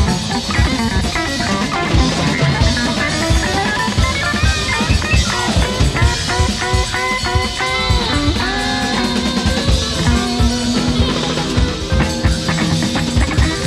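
Instrumental psychedelic rock: a guitar line with bending, gliding notes over a busy drum kit, with no vocals.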